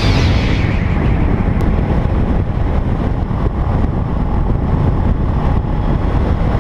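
Enduro motorcycle running under way, its engine noise mixed with heavy wind rush on the microphone.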